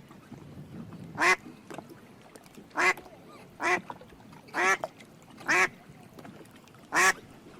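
Duck quacking: six short, loud quacks at irregular intervals, about a second or so apart.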